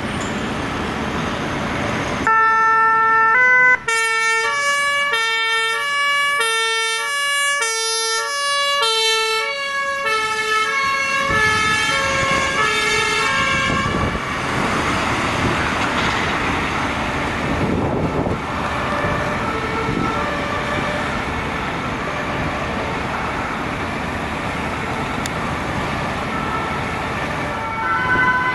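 Two-tone siren of a fire brigade command van, its alternating high and low notes loud from about two seconds in and then growing fainter under traffic noise as the van drives away. Near the end a second emergency vehicle's siren starts up.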